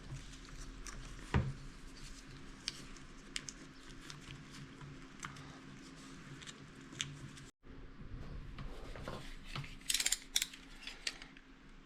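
Faint clicks and rustles of a car's wiring harness and its plastic clips being handled, with a sharper knock about a second and a half in and a quick run of clicks near the end.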